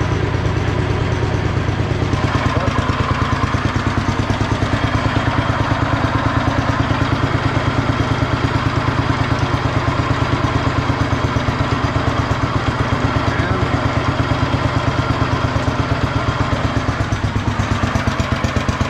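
Allis-Chalmers B-12 garden tractor engine running at a steady speed with an even pulsing beat, during a test of its newly installed hydraulic lift. About two seconds in, a brighter hiss joins the engine note and stays.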